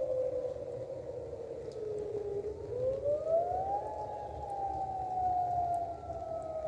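Dam emergency warning siren wailing. Its pitch sinks slowly, climbs steeply about halfway through, then begins sinking again.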